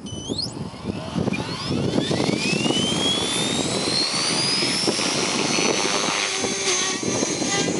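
Align T-Rex 470LM electric RC helicopter spooling up on the ground: the brushless motor and gear whine climbs steadily in pitch over about four seconds, then holds level at flying speed over the rush of the turning rotor. A few quick rising chirps come right at the start.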